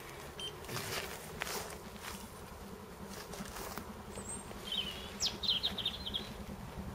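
Quiet outdoor ambience beside a railway line: a faint steady low buzz, with a bird's quick run of high chirps about five seconds in.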